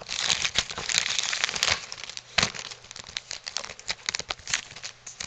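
Plastic trading-card pack wrappers crinkling and crackling in the hands as a protectively wrapped card is unwrapped. The crinkling is busiest for about the first two seconds, then turns to scattered crackles with one sharp snap about halfway through.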